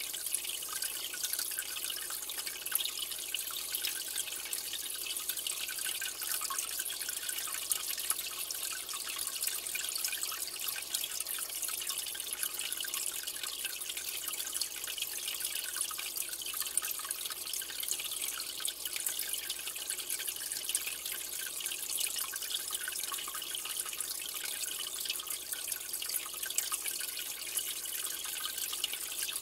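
Water trickling and dripping steadily, a continuous fine patter of small splashes, as from aquarium water flow.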